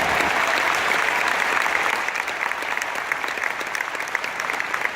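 A large audience applauding, the clapping dense at first and thinning out near the end.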